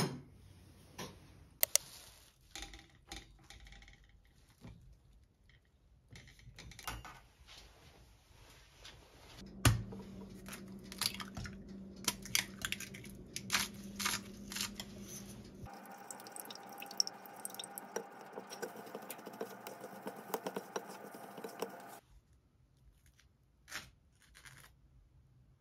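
Scattered small clicks and taps of kitchenware being handled, with a steady low hum under the middle stretch while an egg is cooked in a small pot on the hob.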